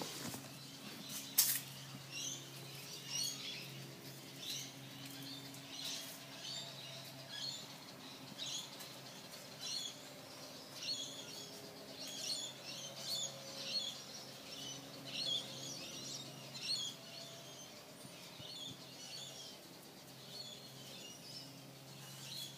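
Birds chirping in short, repeated bursts over a steady low hum, with one sharp click about a second and a half in.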